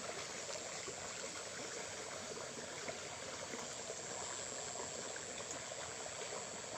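Small river water flowing and trickling steadily.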